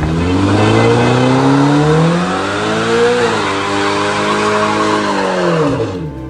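Sports car doing a burnout: the engine revs climb over the first three seconds, dip briefly and hold high, then fall away near the end, over the hiss and squeal of the spinning rear tyre.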